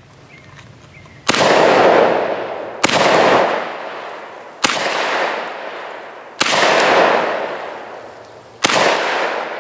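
Vepr-12 semi-automatic 12-gauge shotgun firing five shots, spaced about one and a half to two seconds apart, each shot trailing off in a long echo.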